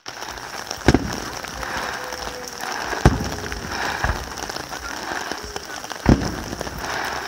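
Aerial firework shells bursting overhead in sharp bangs about a second in, at about three seconds, faintly at about four seconds, and again at about six seconds, with crackling in between.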